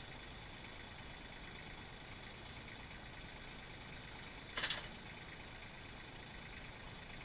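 Kioti CK3510 compact tractor's diesel engine running steadily, driving a hydraulic forestry crane as it lowers a log in its grapple onto a log trailer. A short sharp burst of noise cuts in once, a little past halfway.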